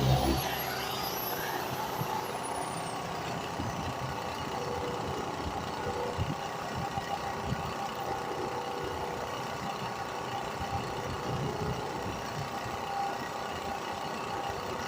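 Power sander switched off at the start, its high motor whine falling in pitch as it spins down over about three seconds. A steady mechanical hum carries on afterwards.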